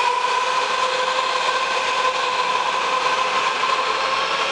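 Washington Metro (WMATA) Silver Line train pulling out of an underground station, its electric traction motors giving a steady high whine over the rumble of the cars on the rails.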